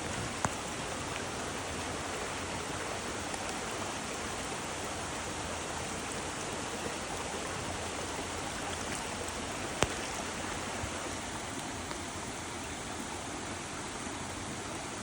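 Steady rushing of water, an even hiss with no rhythm. A sharp click sounds about half a second in, and a louder one near ten seconds.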